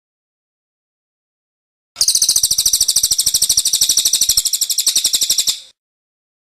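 A small songbird's rapid trill of evenly repeated high chips, about a dozen a second. It starts about two seconds in and stops abruptly after nearly four seconds.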